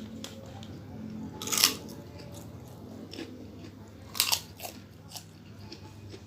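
A person biting into crisp, crunchy fried food twice, with two loud crunches and quieter chewing and crackling between them.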